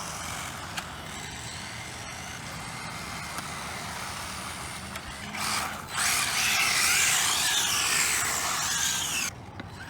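Brushless electric RC car (a Team Associated RB10 buggy) driving, with tyre noise and a faint high motor whine. About six seconds in it gets much louder, with a wavering whine as it runs close by, then cuts off suddenly near the end.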